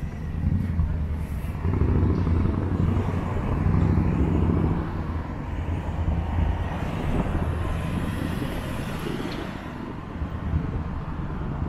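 Road traffic going by: a low, continuous rumble that swells about two seconds in and slowly eases off.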